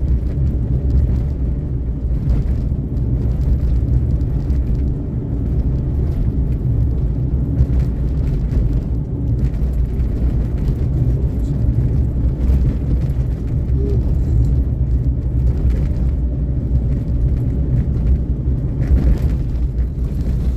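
Suzuki Karimun hatchback's engine and road noise heard from inside the cabin while driving, a steady low drone.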